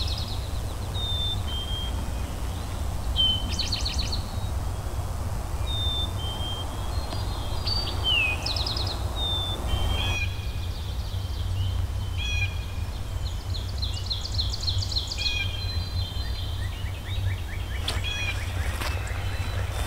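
Several songbirds singing in the dawn chorus, short repeated phrases and trills from different birds, over a steady low rumble. A few sharp clicks come near the end.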